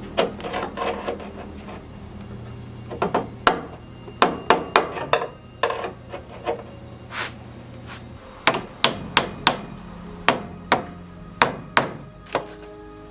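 Hammer blows on the sheet metal of a car's door post, in irregular strokes with short pauses, knocking dents and wrinkles back into shape.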